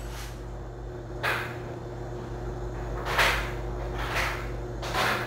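Spoonfuls of olive oil going into a hot pot of flour-coated beef cubes, heard as four short hissing bursts over a steady low hum.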